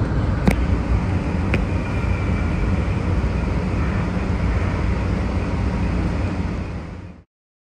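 Siemens P2000 light rail vehicle running along the track, a steady low rumble with a faint high whine, heard from the operator's cab. Two sharp clicks come about a second apart near the start. The sound fades and cuts off near the end.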